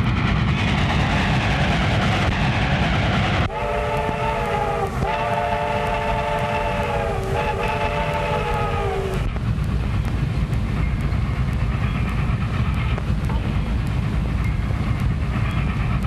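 Steam locomotive running with a steady low rumble, its chime whistle blowing three blasts from about three and a half seconds in, the middle one the longest.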